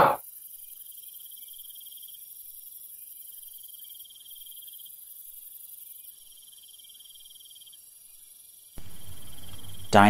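Crickets chirping in a steady, pulsing trill over a high hiss. About nine seconds in, a louder even noise comes in underneath.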